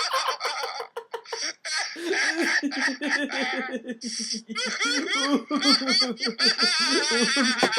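Deliberate laughter-yoga laughter: a rapid run of 'ha-ha-ha' beats that goes on without pause, breaking into a higher, wavering laugh near the end.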